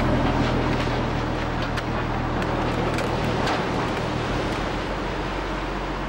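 Fishing trawler's engine running with a steady low hum, under wind and sea noise, with a few light clicks and knocks.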